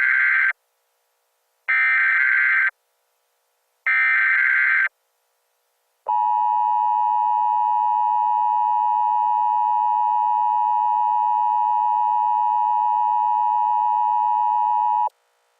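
Emergency Alert System SAME header: three data bursts of about a second each, the first already under way. These are followed by the EAS attention signal, a steady loud electronic tone held about nine seconds that cuts off suddenly.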